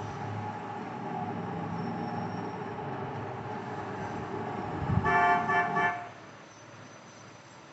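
A vehicle horn sounds once, held for about a second, about five seconds in, over a steady background hum of traffic; after the honk the background is quieter.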